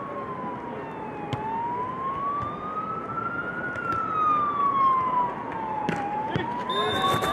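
A siren wailing, its single tone sliding slowly down, up and down again, each sweep taking about two seconds, with a couple of sharp knocks from the volleyball being played.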